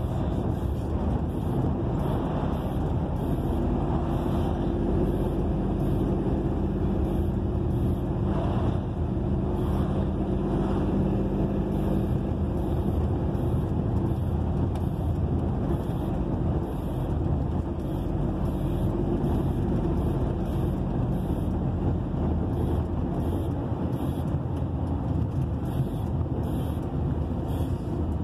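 Truck engine running steadily at highway cruising speed, heard from inside the cab along with road noise.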